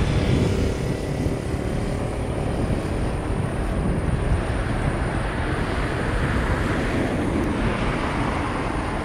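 Boeing 777F's twin GE90 jet engines in reverse thrust as the freighter rolls out after touchdown: a steady, distant rushing roar that swells slightly in the second half.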